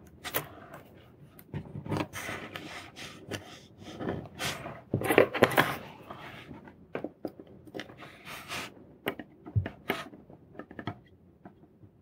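Irregular small clicks and scrapes of tweezers, a soldering iron and a tiny surface-mount chip being handled on a wooden workbench, busiest about five seconds in.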